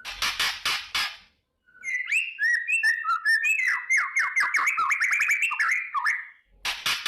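White-rumped shama (murai batu) giving its harsh crackling 'kretekan' rattle of about six quick strokes, then a fast run of whistled notes and clicks lasting about four seconds, then the crackling rattle again near the end. The crackle is the excited, fighting call that keepers play as a lure to provoke other shamas.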